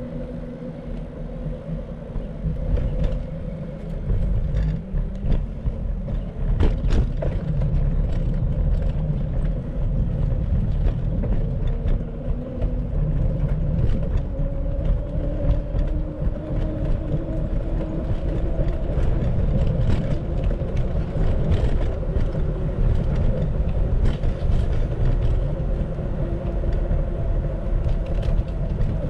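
Riding noise from a bicycle ride: heavy wind rumble and road noise, a steady hum that slowly shifts in pitch, and scattered clicks and knocks.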